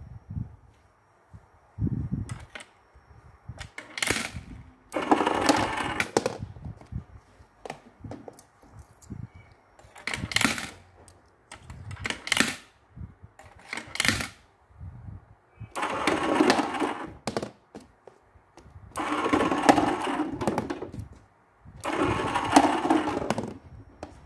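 Electric coin hoppers running in repeated bursts of one to two seconds, coins clattering as they are paid out, with shorter clinks and knocks in between.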